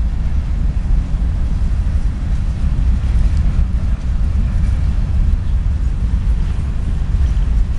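Freight train of covered hopper cars rolling past, a steady low rumble of steel wheels on the rails.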